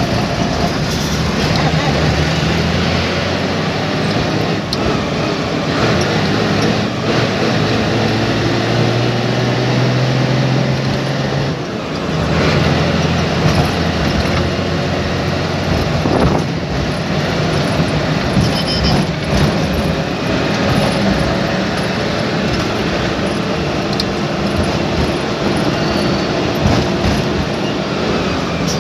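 Bus engine and road noise heard from inside the driver's cab as the bus drives along. The engine note climbs for several seconds, breaks off about twelve seconds in, then picks up again.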